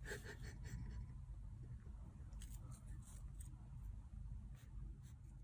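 Faint sharp clicks and crinkles of a kitten biting and pawing at a small blue object: a quick run of clicks at the start, then a few scattered ones, over a low steady background hum.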